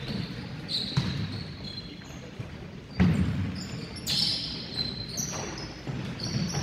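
Basketball game sounds on a hardwood court in a large echoing gym: sharp thuds of the ball, the loudest about three seconds in, and short high sneaker squeaks on the floor several times.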